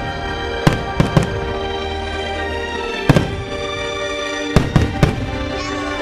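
Fireworks bursting in three quick clusters of sharp bangs, about eight in all, over loud orchestral music playing steadily underneath.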